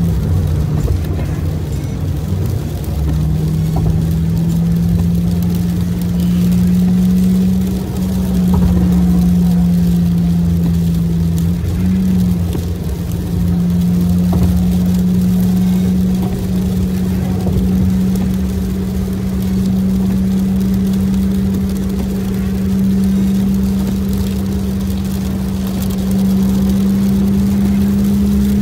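Car engine and tyre noise on a wet highway, heard from inside the cabin while driving: a steady engine drone that shifts slightly in pitch a few times, over a low road rumble.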